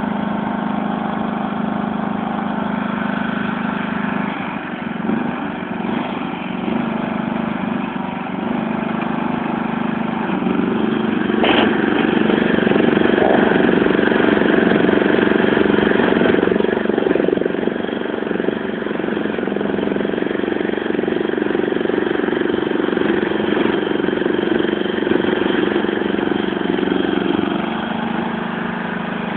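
Ride-on lawn mower's small engine running steadily, its pitch climbing about ten seconds in and held higher under load for some seventeen seconds before dropping back near the end. A brief high squeak comes just after the pitch rises.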